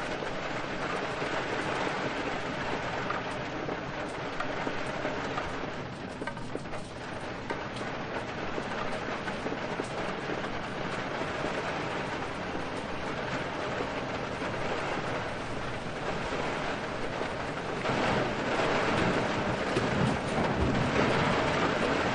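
Steady heavy rain with wind, a dense hiss that swells louder in the last few seconds.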